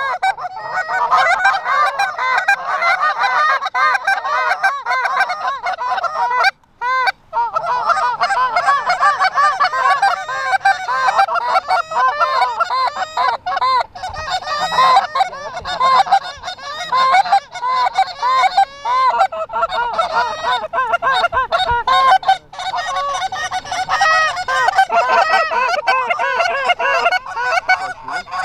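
A large flock of Canada geese honking, many calls overlapping continuously, with a brief break about 7 seconds in.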